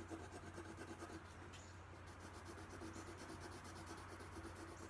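Faint scratching of a dark green colored pencil stroked over dry watercolor-painted paper, shading lightly to fade the colour out.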